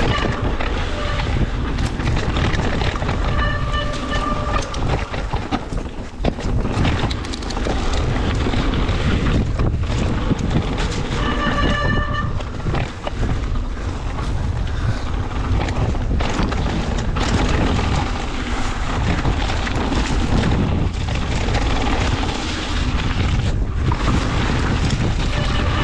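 Mountain bike ridden fast down a dirt and rock trail: wind buffeting the microphone over tyre roar and the rattle of the bike over bumps. Two brief squeals stand out, about three seconds in and again about eleven seconds in.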